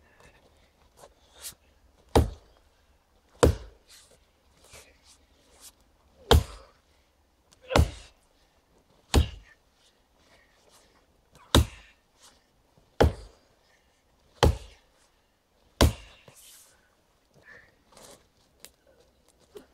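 Fiskars axe chopping into the trunk of a standing tree to fell it: nine hard strikes about one and a half seconds apart, with lighter knocks between them. The strikes stop about four seconds before the end.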